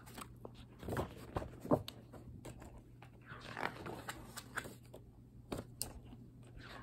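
A picture book being handled and opened: the pages and cover rustle, with scattered taps and clicks as it is turned in the hands. A faint steady hum runs underneath.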